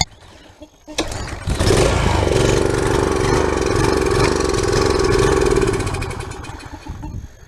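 Briggs & Stratton small engine on a pressure washer starting with a sudden catch about a second in, running for about five seconds, then fading out and dying. It won't keep running, which the owner puts down to old, possibly water-contaminated gasoline.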